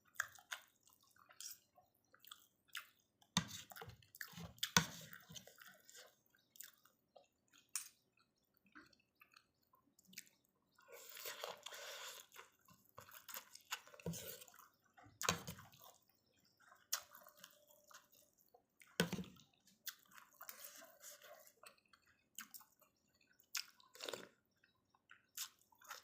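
Close-up eating sounds of noodle soup: chewing, with wet slurping of the noodles and broth coming in short bursts and one longer stretch about halfway through.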